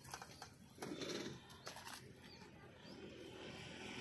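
Faint scuffs and scrapes of a child climbing a tree trunk, with a few short bird chirps. A motor scooter's engine rises near the end as it approaches.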